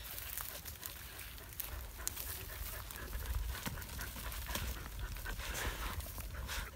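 Several dogs sniffing and panting as they dig at a mouse burrow in dry, cloddy soil, with frequent short scrapes and clicks of paws and loose clods over a low rumble.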